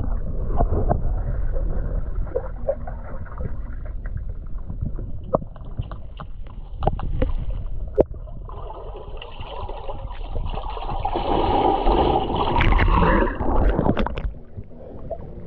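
River water heard through a submerged camera: a muffled low rumble with scattered clicks and bubbling as a swimmer dives in and moves through the water. About halfway through there is a denser stretch of bubbling and churning that lasts several seconds.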